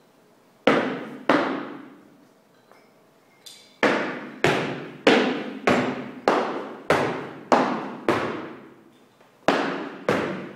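A long wooden staff struck down on a wooden floor in knocks. Two come close together, then after a pause a steady run of knocks about every half second, each ringing out with a long echoing tail.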